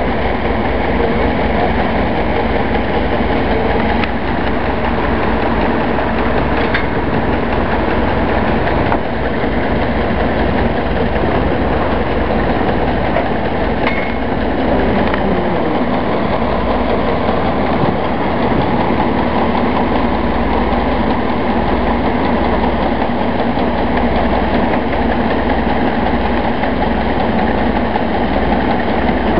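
Combine harvester running loud and steady, its engine and machinery going as it unloads wheat through its auger.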